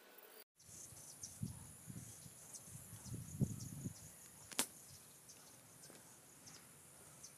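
Faint rural outdoor ambience with a steady high-pitched insect drone. A few soft low thumps come in the middle, and one sharp click about four and a half seconds in.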